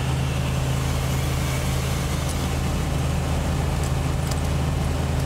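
Inside the cab of a 1987 diesel Toyota Land Cruiser at highway speed: the diesel engine's steady low drone under a constant wash of road and wind noise.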